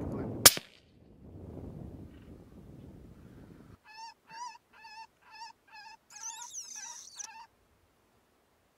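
A single gunshot about half a second in, the loudest sound, over a low rumble of noise. After a cut, a run of short, high, squealing animal-like calls, about three a second, ending with a denser shrill stretch that cuts off suddenly.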